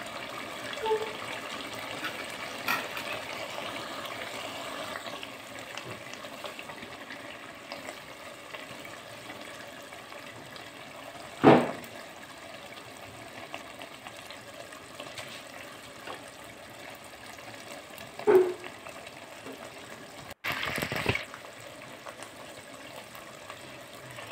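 Liver and tinda curry bubbling steadily in a large aluminium pot, a soft continuous hiss; the masala has cooked down until the ghee has separated. Two sharp knocks stand out, one about halfway through and one about three-quarters in.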